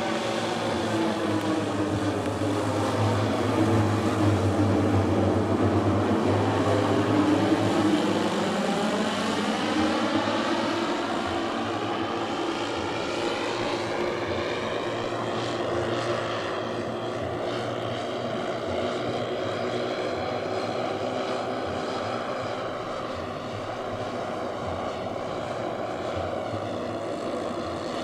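Twelve 10 cc four-stroke O.S. model engines on a large radio-controlled Dornier Do X flying boat droning together in flight. The sound grows louder to a peak about eight seconds in, then gets fainter as the plane moves away.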